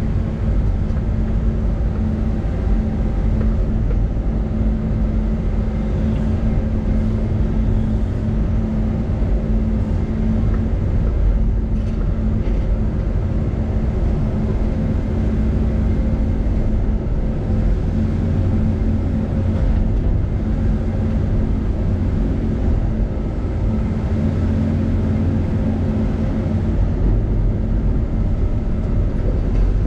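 Caterpillar excavator's engine and hydraulics running steadily as the bucket is moved, heard from inside the cab: a continuous low drone with a steady hum.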